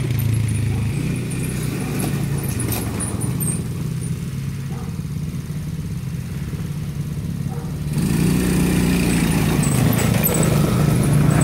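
Small youth ATV (four-wheeler) engine running steadily as it rides along a dirt track, getting louder again about eight seconds in.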